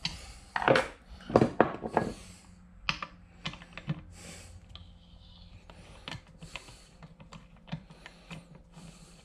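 Irregular metal clicks and taps of a ratchet and socket extension turning out a freed, rust-seized motor-mount bolt on a 1992 Johnson 25 hp outboard, with short hisses of penetrating spray near the start.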